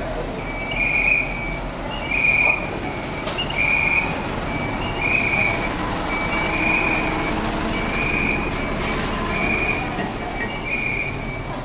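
A high electronic beep, often led by a short pip, repeating about once a second over a bus idling and street noise.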